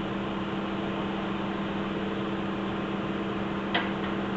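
Mobile crane's engine running with a steady hum during the girder lift, with one brief sharp sound a little before the end.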